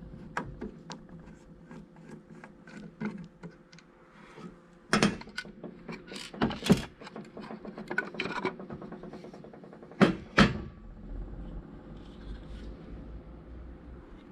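Small clicks, taps and rubbing of a plastic HVAC control panel being unscrewed and taken apart by hand, with a handful of sharper knocks about halfway and again near two-thirds through.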